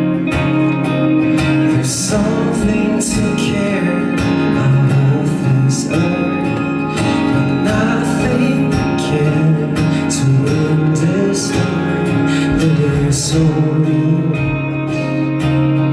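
Live band music: a guitar-led song with a singing voice and a steady beat.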